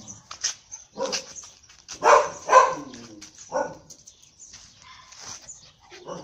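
Puppy barking: about four short barks, the loudest pair about two seconds in, then fainter sounds.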